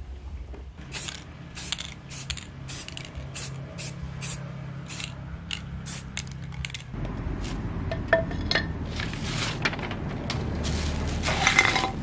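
A quick irregular run of sharp clicks, then an aerosol spray-paint can hissing in a few short bursts, the longest near the end, as paint goes onto a freshly welded steel joint.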